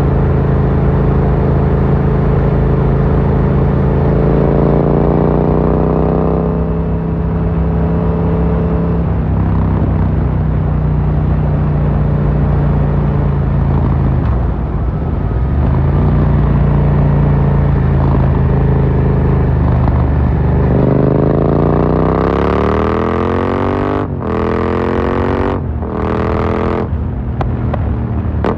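2018 Yamaha MT-07's parallel-twin engine through an Akrapovic carbon full exhaust, under way: steady cruising with a brief drop in revs around the middle, then hard acceleration in which the pitch climbs, breaking twice for quick upshifts near the end. Right at the end the throttle closes and the exhaust crackles on the overrun.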